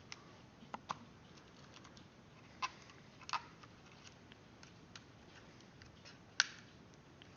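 Light scattered clicks and taps from a damaged 5th-generation iPod being handled and turned over. The loudest is a single sharp tap a little over six seconds in.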